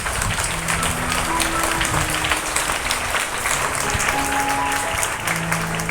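An audience clapping steadily over background music with a few held low notes.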